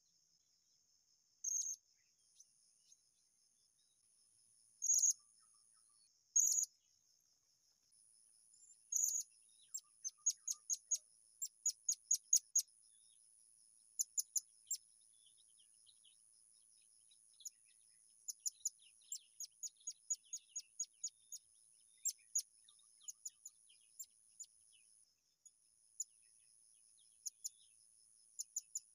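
Blue-crowned hanging parrot (serindit) giving short, high-pitched chirps: single calls at first, then quick runs of many calls in a row from about ten seconds in. A thin, steady high insect buzz runs underneath from about two seconds in and drops out briefly near the end.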